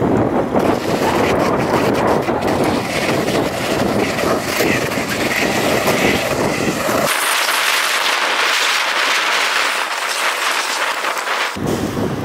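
Kick scooter wheels rolling fast over pavement with wind on the microphone: a steady rough rumble with scattered clicks. About seven seconds in the low rumble cuts out, leaving only a thin hiss, and it returns near the end.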